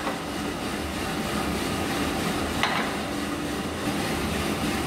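Small drum coffee roaster running: beans tumbling in the rotating drum over a steady motor hum, with one sharp click a little past the middle. The beans are medium brown and glossy, at the start of the development stage just before first crack.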